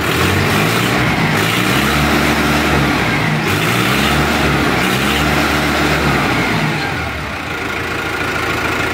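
Gromax Hindustan 60 tractor's diesel engine, just started, revved up and down several times, then settling about seven seconds in to an even idle with no hunting.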